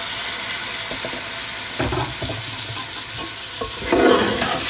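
Keema and potatoes sizzling in an aluminium pot just after half a cup of water has gone in. A metal ladle stirs and scrapes against the pot from about two seconds in, loudest near the end.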